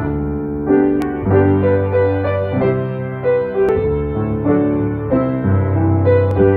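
Slow piano music: held chords over low bass notes, changing about every half second to a second.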